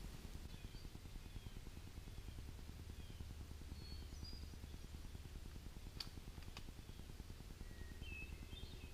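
Quiet forest ambience: a low steady rumble with faint, scattered high chirps, and two sharp clicks a little over half a second apart about six seconds in.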